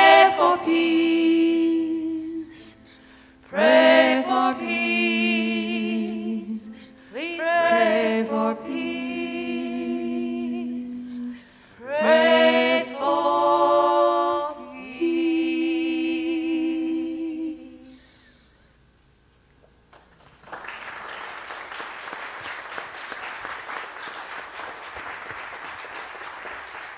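A small group of voices sings four long, harmonized phrases with held notes that end the song and die away. After a brief hush, the audience applauds steadily for the last several seconds.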